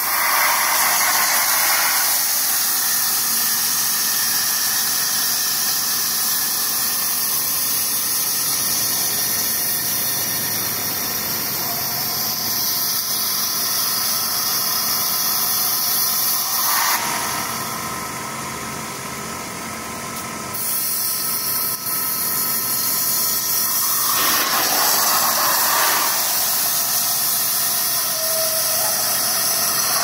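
8000 PSI waterjet cutting fibreglass duct liner: a loud, steady hiss of the high-pressure water jet that comes on abruptly at the start and eases off for a few seconds past the middle before returning.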